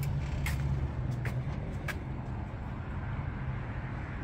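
Steady low rumble of a motor vehicle engine running, with a few faint short ticks.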